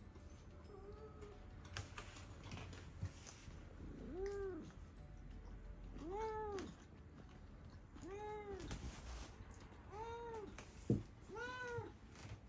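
A domestic cat meowing over and over, about once every two seconds, each meow rising and then falling in pitch, as the cats beg for food. A single sharp knock sounds shortly before the last meow.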